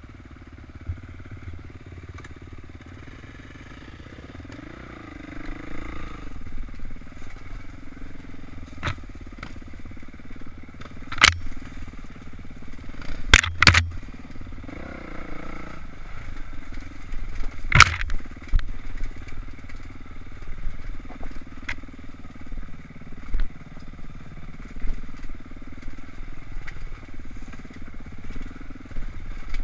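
Kawasaki KX450 four-stroke dirt bike engine running under the helmet camera, quieter at first and louder from about four seconds in, with the throttle rising and falling as it climbs rocky ground. Several sharp loud knocks break in around the middle.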